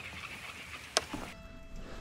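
Faint background music, with one sharp click about a second in.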